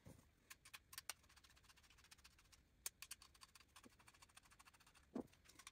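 Near silence with faint, scattered small clicks from a screwdriver driving screws that fasten a VEX V5 smart motor to a metal C-channel, with a soft knock about five seconds in.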